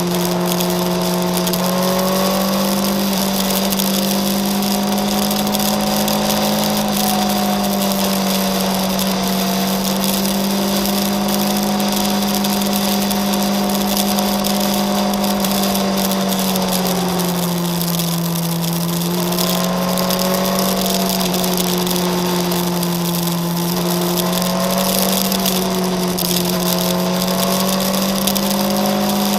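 Motorcycle engine running at steady cruising revs, with wind rushing past the microphone. The engine note sags briefly about two-thirds of the way through, then picks up again.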